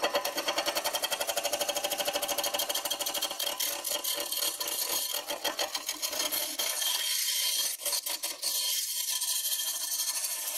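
Gouge cutting a spinning green (wet) oak blank on a wood lathe: a rapid, even clatter of the tool meeting the turning wood, with chips spraying off.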